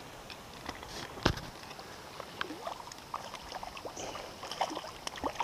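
Light splashing and sloshing of shallow water as a landing net is dipped in to land a hooked trout, with scattered small drips and one sharper knock about a second in.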